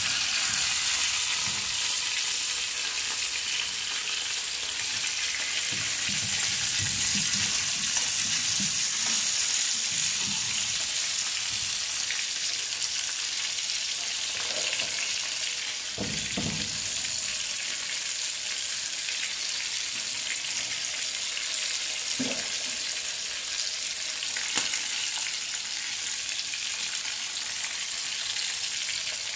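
Fish steaks sizzling steadily as they fry in oil in a frying pan. A few soft knocks and scrapes come in the first third, as the pieces are turned with a fork.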